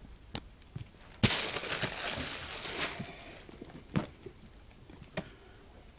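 Cardboard box and packaging being opened and handled: a sharp knock about a second in, then about two seconds of loud rustling and scraping, and a few light taps afterwards.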